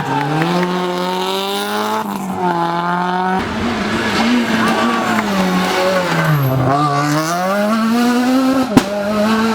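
Rally car engines at full throttle, pitch climbing through the gears and dropping as they lift off for corners, with the sound changing abruptly a couple of times between passes. A single sharp crack near the end.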